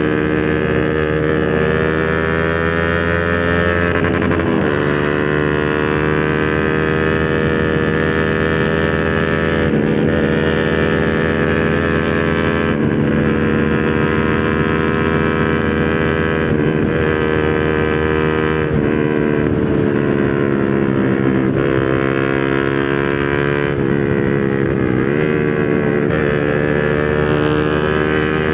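Honda RS150R's single-cylinder 150 cc engine running through an open Espada 32 mm exhaust, steady and loud. The engine note dips briefly and picks up again several times.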